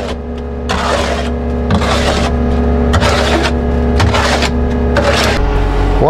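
Skid-steer loader's engine running steadily while a long-handled tool scrapes the last wet concrete out of the steel mixer drum, a rasping stroke about once a second.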